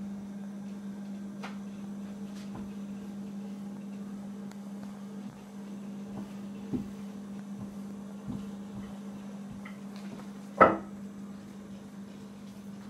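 A steady low hum with a few light knocks, and one sharp knock about ten and a half seconds in.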